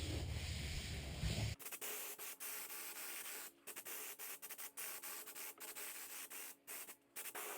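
Faint, uneven rubbing strokes on a work surface, likely by hand while glue is worked around a panel. A low background hum cuts off abruptly about a second and a half in.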